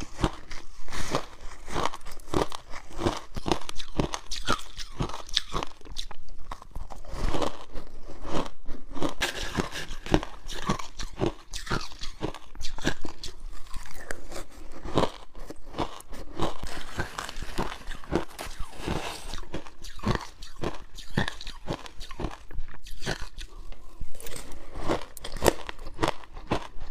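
Frozen passion fruit ice being bitten and crunched between the teeth: a long run of sharp, crackling crunches in quick succession.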